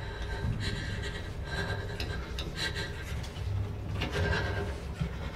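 Stifled, uneven breathing and sniffs of a crying girl, with soft rasping rustles of cloth, over a low steady rumble.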